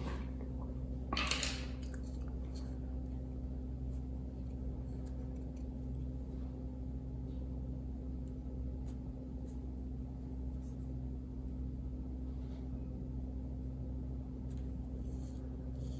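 Quiet room tone: a steady low electrical hum, with one brief noise about a second in and faint scattered ticks.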